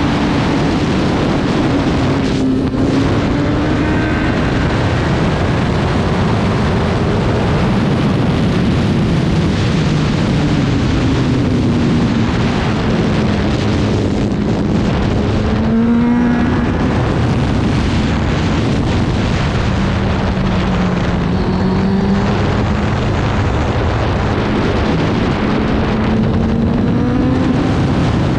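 Racing motorcycle engine running hard under heavy wind rush, its pitch climbing and falling several times with brief breaks as it changes gear and slows for corners.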